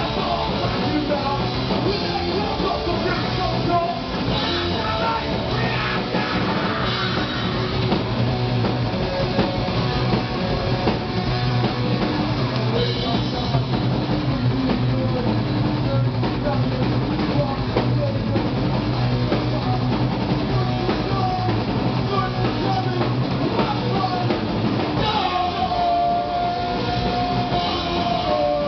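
Live rock band playing: electric guitar and drum kit, with a singer on the microphone.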